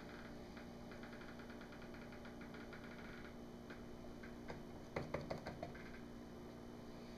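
Faint light clicking of plastic pitchers being handled at a paper-lined wooden soap mold, with a quick run of sharper knocks about five seconds in.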